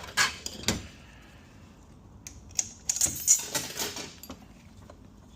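Metal automatic-transmission parts clinking and clattering as they are handled and set down on the bench: a couple of sharp clinks at first, then a quick cluster of jingling metal clinks about three seconds in.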